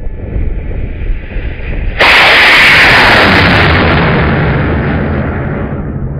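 High-power rocket motor igniting about two seconds in with a sudden loud rushing roar of exhaust, which fades steadily over the next few seconds as the rocket climbs away.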